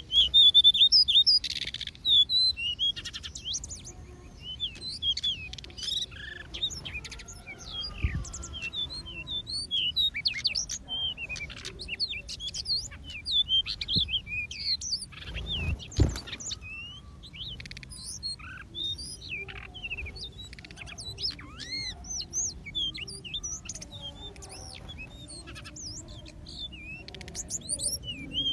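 A flock of small aviary birds chirping and twittering, many short calls overlapping, busiest in the first couple of seconds. A few soft thumps come in among them.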